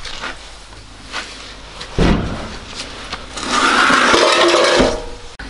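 A car's steel wheel and tyre being handled and moved on a concrete floor: a thump about two seconds in, then a scraping rub for over a second.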